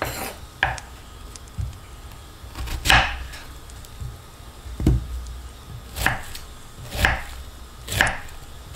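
Knife chopping food on a cutting board in slow, separate strokes, about one a second, with the strongest cuts in the second half.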